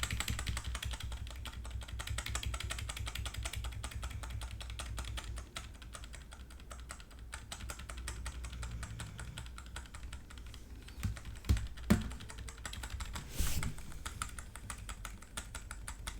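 Computer keyboard being typed on: a run of quick, light key clicks, with a few louder dull knocks near the end.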